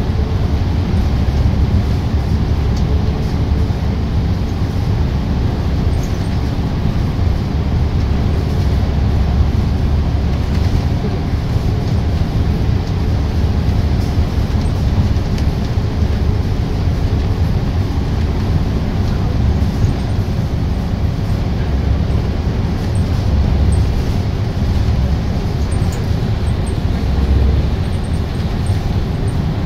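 Steady drone and low rumble of a double-decker bus's engine and tyres, heard from inside the cabin while it cruises through a road tunnel.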